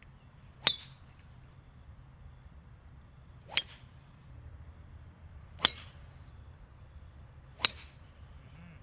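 Golf drivers striking balls off the tee: four sharp, short impacts, one per drive, spaced two to three seconds apart.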